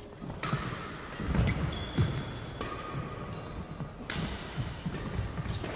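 Badminton rally: several sharp racket hits on the shuttlecock, with court shoes squeaking briefly and feet thudding on the hall floor between them.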